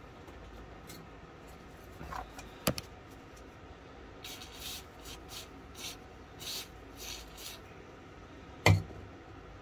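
Small metal tool-and-gun handling noises: a few light clicks and a knock as the pistol is handled, then a run of about eight short scraping sounds as a screwdriver blade works at a stuck screw in the pistol's lock. One loud knock comes near the end.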